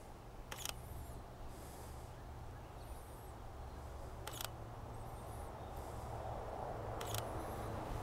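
Three single camera shutter clicks from a Sony A7R II mirrorless camera, a few seconds apart, as frames are taken. Faint high bird chirps between the clicks.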